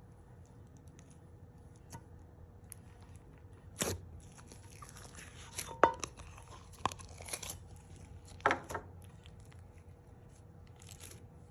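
Slime kit containers and slime being handled and opened by hand. There are a few sharp clicks and snaps about 4, 6, 7 and 8.5 seconds in, with a stretch of crackly, tearing noise between them.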